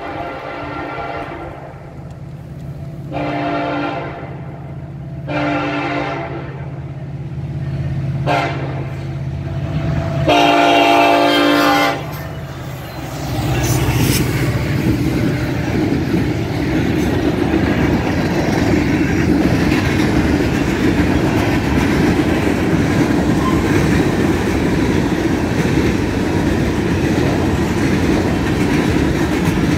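Norfolk Southern diesel freight locomotive approaching with its engine rumbling and sounding its horn for the grade crossing: two long blasts, one short, one long. About 13 seconds in, the locomotive passes close by and the freight cars follow with loud, steady rolling wheel noise and clickety-clack over the rail joints.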